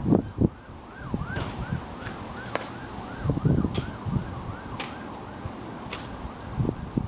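An emergency-vehicle siren in a fast yelp, its pitch rising and falling several times a second, with gusts of wind on the microphone. A few sharp clicks come about a second apart.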